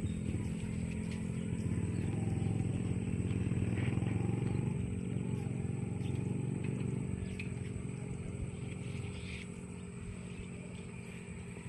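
A motor vehicle's engine passing close by, growing louder over the first few seconds and then slowly fading. A steady high-pitched whine runs underneath.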